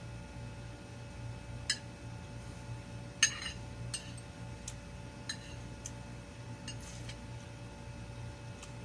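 Metal fork and spoon clinking against a ceramic plate and bowl: a scattered handful of short sharp clinks, the loudest about three seconds in. A steady low hum runs underneath.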